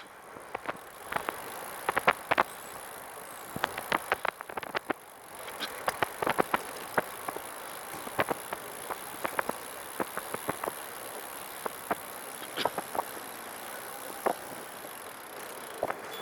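Catrike 700 recumbent trike rolling along with steady tyre and wind hiss, over which come irregular, random clicking rattles from the rear of the trike, behind the rider's head and possibly near the rear wheel. The cause of the rattle is unknown.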